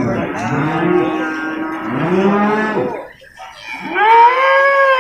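Young water buffalo calling in three calls, each rising and then falling in pitch. The last call, starting near the end, is the longest and loudest.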